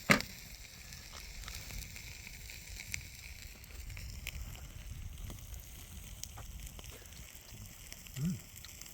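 Campfire burning with a low steady rumble and scattered faint crackles, after one sharp click right at the start.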